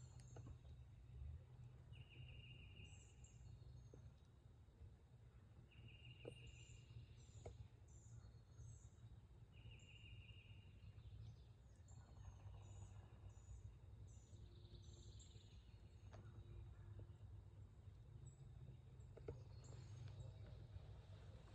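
Faint songbirds at dawn: a short trill repeated every few seconds and scattered high chirps, over a steady low rumble.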